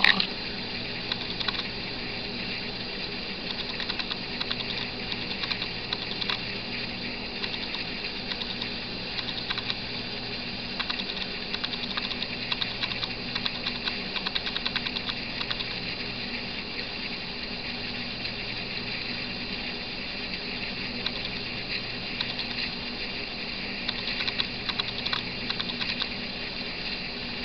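Camera noise: a steady hum under rapid, irregular small clicking and ticking, which comes in denser clusters at times.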